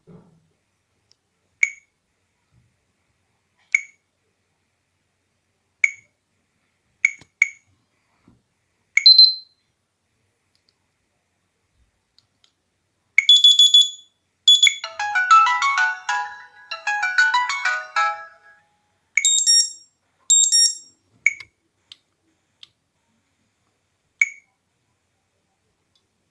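Samsung Galaxy Ace (GT-S5830i) stock ringtone sounds: short single electronic beeps about every two seconds, and about halfway in a quick melodic tune of several notes lasting about five seconds, followed by a few bright chimes.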